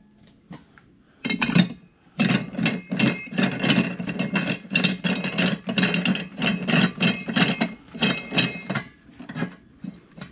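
Steel locking rod and locking plate of a manual tire-mounting station clinking and rattling against the wheel hub as they are turned and cinched down to clamp a steel tractor rim. A rapid run of sharp metallic clinks with a ringing edge starts about a second in and stops near the end, leaving a few lighter knocks.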